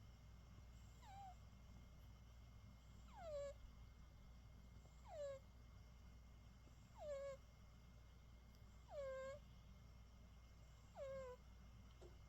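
British Shorthair cat snoring in its sleep: a short, high, beep-like whistle that falls in pitch, repeating about every two seconds, six times.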